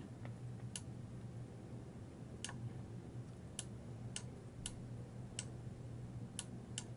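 Computer mouse clicking, about eight faint, irregularly spaced clicks as sliders are grabbed and released, over a low steady hum.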